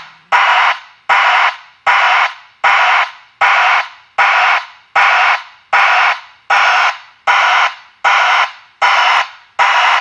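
Brigade BBS-TEK 107 dB broadband backup alarm sounding its pulsed swoosh: a hissing burst of rushing noise about every three-quarters of a second, each starting sharply and fading away, with no beeping tone.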